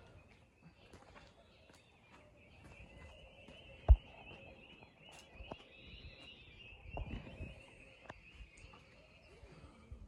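Cats eating dry food: scattered small crunching clicks over a steady high chirring in the background, with one sharp knock about four seconds in.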